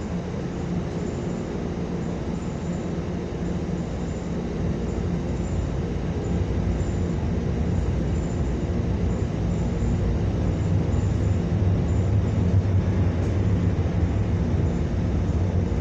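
Inside a New Flyer XN40 compressed-natural-gas transit bus: a steady engine hum and cabin rumble while the bus sits almost stopped. The hum grows louder from about halfway through as the bus starts to move off slowly.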